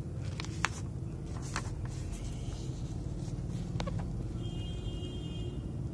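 Steady low background rumble, with a few sharp clicks in the first few seconds and a brief faint high tone about four and a half seconds in.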